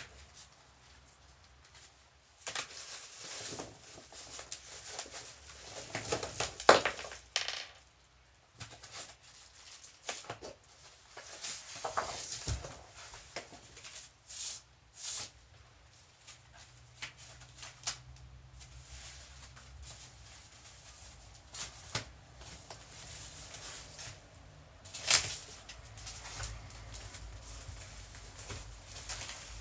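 Guitar packaging being handled and opened: irregular rustling, scraping and tearing of cardboard and wrapping, with scattered clicks and knocks and a sharp knock about seven seconds in and another near twenty-five seconds.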